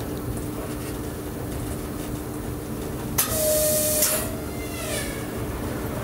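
Electric train running with a steady low hum; about three seconds in, a short loud train horn blast, a hissing burst with one steady tone lasting just under a second, sounded as an oncoming electric multiple unit approaches on the next track, followed by faint falling tones.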